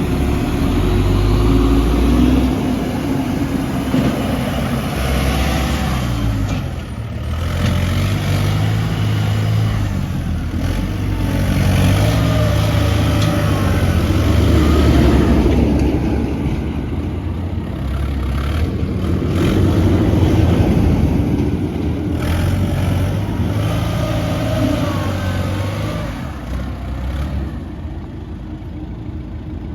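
Heavy diesel engines of earthmoving machinery running, the pitch repeatedly rising and falling as they rev and labour under load, easing off near the end.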